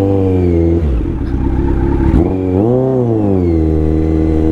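Kawasaki Z900 inline-four motorcycle engine under way, its revs falling away about a second in, then rising in a short swell and dropping back again.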